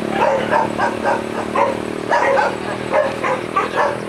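A dog barking over and over, about two or three short barks a second, over a steady low hum.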